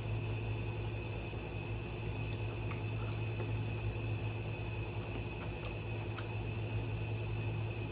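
Window air conditioner running with a steady low hum and a thin high whine, with a few faint clicks from eating.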